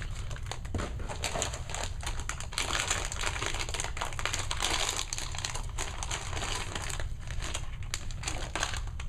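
Clear plastic blister packs of HeroClix figures crinkling and clicking as they are handled, a dense, irregular crackle, a little louder in the middle.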